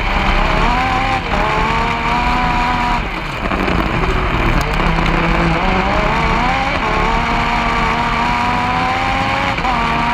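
A kart cross's Yamaha MT-09 three-cylinder motorcycle engine, heard onboard at race pace. Its pitch climbs steadily and drops sharply at each upshift, several times, with a brief lift off the throttle about three seconds in.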